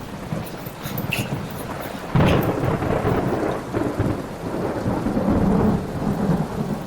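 Thunderstorm: rain falling with rolling thunder, a louder rumble breaking in about two seconds in.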